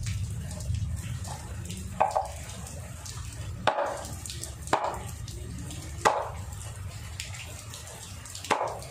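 Five sharp knocks, spaced irregularly a second or two apart, each with a short ring, over a steady low rumble.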